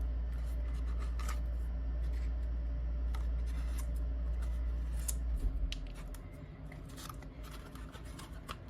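Small clicks, taps and rustles of paper and chipboard craft pieces being handled and pressed into line. Under them runs a steady low hum that stops about five and a half seconds in.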